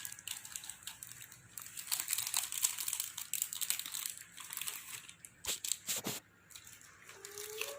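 Packaging crinkling and rustling as items are unwrapped by hand, a steady crackle with a couple of sharper knocks near the middle.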